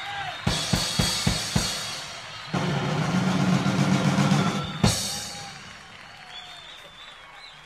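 Live rock band on stage: a run of five drum-kit hits with cymbals, then the band holds a loud chord from about two and a half seconds in until a final cymbal crash near five seconds. As it dies away, whistles from the crowd are heard over audience noise.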